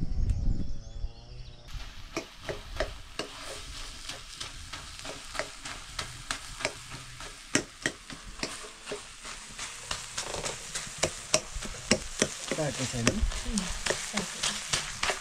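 Food frying in a hot pan with a steady sizzle that starts abruptly about two seconds in. The food is stirred throughout, the spoon knocking and scraping against the pan several times a second.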